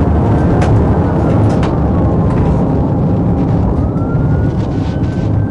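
Loud road rumble of a police car driving fast on a gravel road, with scattered sharp ticks from the gravel. Its siren wails faintly above the rumble in a slow rise and fall.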